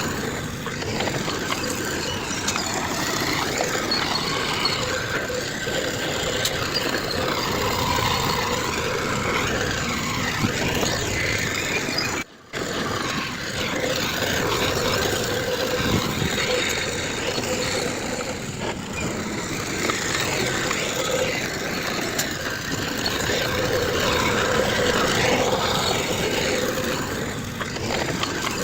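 Heavy diesel earthmoving machinery running steadily, with a constant engine drone. The sound cuts out for a split second near the middle.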